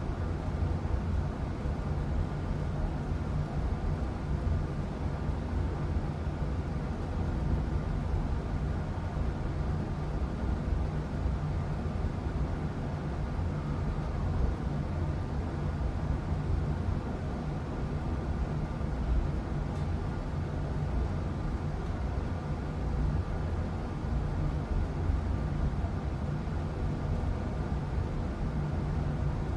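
Old Bryant gas furnace running steadily during its shutdown, its fan still going with a low motor hum and a rush of air as the furnace winds down after being switched off.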